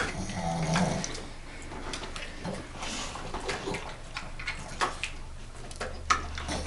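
Dogs' wet licking and mouth sounds, with scattered light clicks of a fork against a plate.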